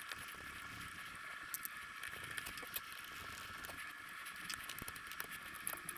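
Faint, scattered light clicks and taps of small alternator parts being handled by hand, over a steady faint hiss.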